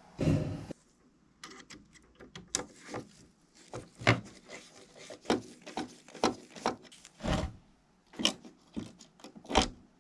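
Irregular clicks, knocks and a short scrape of a 1/18 scale diecast model car and its small parts being handled, with about a dozen separate sharp knocks and a longer rubbing scrape at the start.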